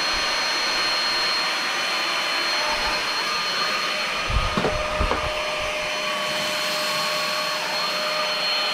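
Tower VL70 cordless stick vacuum running steadily with a whine, picking up rice and loose tea from a wooden floor. A few short low knocks come about four to five seconds in.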